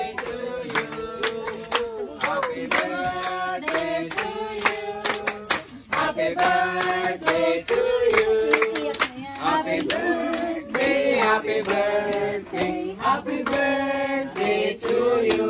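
A group of people singing a birthday song together, with hand clapping along.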